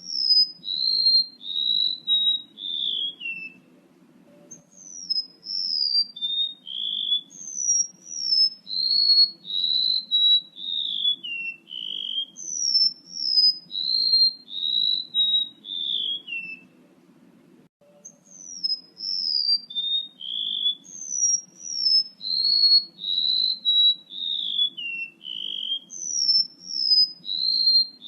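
Bird-lure recording of a male rementuk laut's call: clear whistled notes that step down in pitch, in phrases repeated over and over, with brief breaks about 4 seconds and 17 seconds in. A faint low hum runs underneath.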